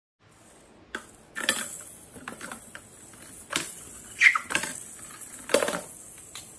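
Small plastic balls clattering down a plastic spiral ball-drop ramp tower toy: a run of sharp clicks and knocks with light rattling between them.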